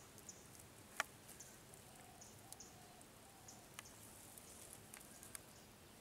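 Near silence, with a few faint soft clicks, the sharpest about a second in.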